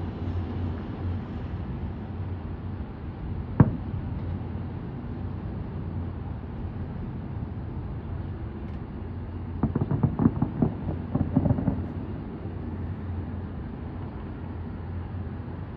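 Fireworks going off: a single sharp bang about three and a half seconds in, then a rapid cluster of crackling pops about ten seconds in, over a steady low hum.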